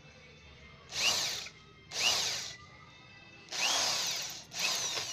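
Electric power drill running in four short bursts of about half a second each, its motor whine rising and falling each time. It is turning a socket on a broken exhaust stud in a motorcycle cylinder head, working the stub out without removing the head.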